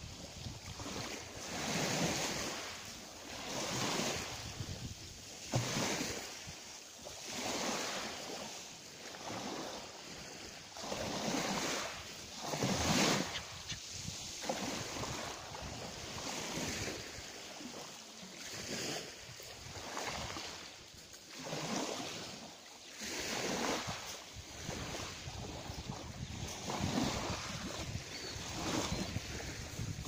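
Small sea waves breaking and washing in at the shore, a wash about every two seconds, with some wind.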